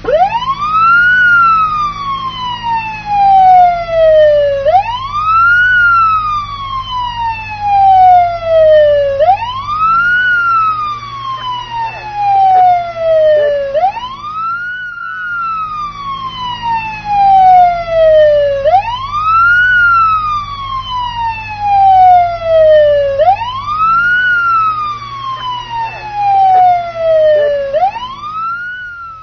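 Police siren sounding a slow wail: each cycle rises quickly in pitch over about a second, then falls slowly for about three and a half seconds, repeating about every four and a half seconds. A low steady hum runs beneath it.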